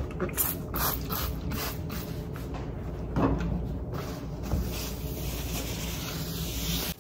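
Trigger spray bottle of surface cleaner squirted in a quick run of strokes, a few a second, then a paper towel wiping the counter with an even hiss, over a steady low hum.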